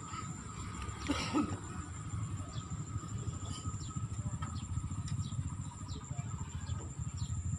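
Wind buffeting the microphone: a continuous, irregular low rumble. Faint short high chirps come through now and then over a thin steady high tone.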